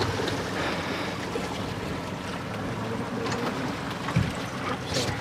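A 150 hp outboard motor running in gear, with water washing along the hull and wind on the microphone; a brief low thump about four seconds in.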